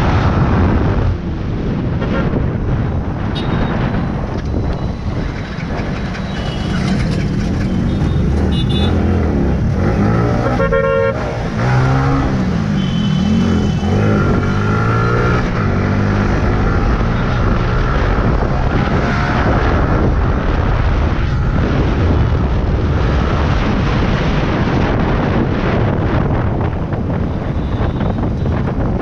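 Yamaha R15 single-cylinder engine running at road speed with wind rushing over the mic, its note rising and falling with throttle and gear changes. A horn beeps briefly about ten seconds in.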